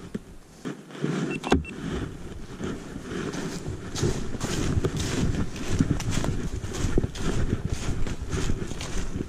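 Hurried footsteps crunching through dry pine straw and fallen leaves, about two steps a second, starting about a second and a half in.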